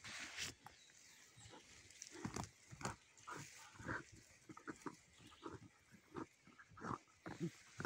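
A dog sniffing hard with its head pushed into an armadillo burrow, in short, irregular puffs, a few a second.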